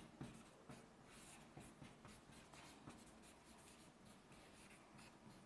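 Faint writing: a quick run of short pen or chalk strokes, one after another.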